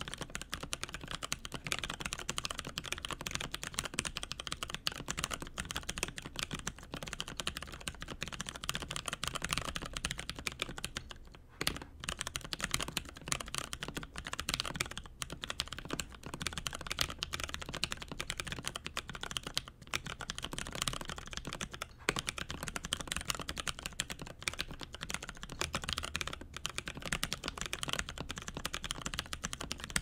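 Fast, continuous typing on an Alice-layout mechanical keyboard in an acrylic case, fitted with lubed and filmed Cherry MX Brown tactile switches: a dense stream of keystrokes with a brief pause a little over a third of the way in.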